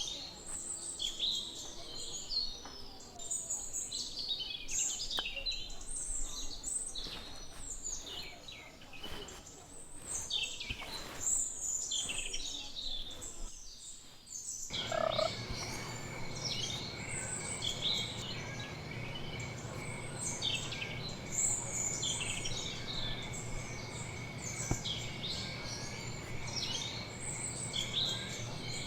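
Many small birds chirping constantly in short high calls. About halfway through the sound changes abruptly, and from then on a steady high whine and a low hum run beneath the chirping.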